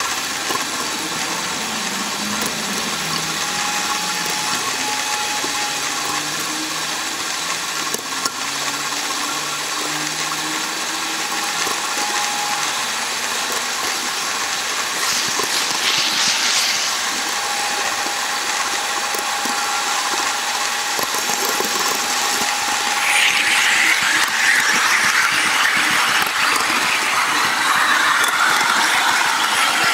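HO scale model train rolling along its track: a steady mechanical whirr of small motor and gears with rapid clicking of wheels over the rail joints. It grows louder and rougher about two-thirds of the way through.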